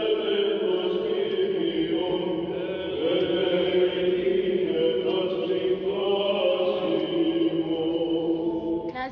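Greek Orthodox (Byzantine) chant of a wedding service: slow singing in long held notes that move slowly from pitch to pitch.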